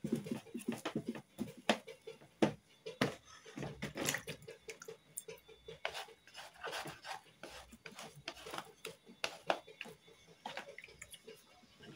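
A stirring utensil knocking and scraping against a pot as wheat flour is worked into boiling water to make a stiff wheat swallow. The knocks are irregular and keep coming, with scraping between them.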